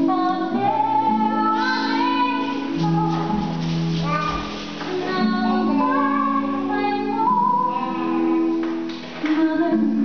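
A recorded song playing: a high sung vocal melody over sustained backing chords.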